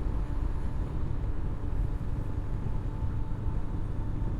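Honda CB500X's parallel-twin engine humming steadily under a low, even wind rumble while riding at a constant speed.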